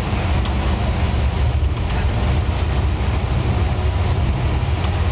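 Scania N94UD OmniDekka double-decker bus running, heard from inside the upper deck: a steady low engine drone under a wash of road and body noise, with a few light rattles.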